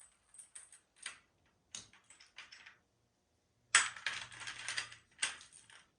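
Small metal nut driver bits clinking and rattling in a bit kit as they are handled and sorted through: a few light clicks, then a louder spell of clattering about four seconds in and a shorter one near the end.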